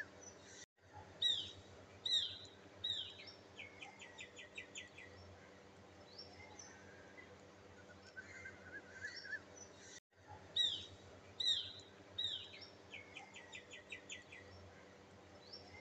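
Birds chirping: a few sharp down-slurred chirps followed by a quick rattling trill, the same sequence coming round again about nine seconds later, as a looped birdsong track does. The sound cuts out briefly twice.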